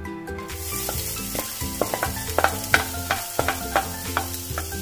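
Chopped ginger sizzling as it hits hot oil in a nonstick frying pan, the hiss starting about half a second in. A wooden spoon stirs it, with many sharp taps and scrapes against the pan.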